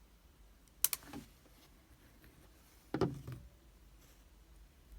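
Two sharp clicks of small metal lock parts being handled, about a second in and again near three seconds, as a pin-tumbler lock is taken apart.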